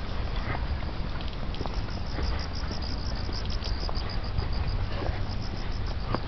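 Footsteps of a person walking on pavement over a steady low rumble, with a fast high-pitched chirping at about seven pulses a second through the middle and again near the end.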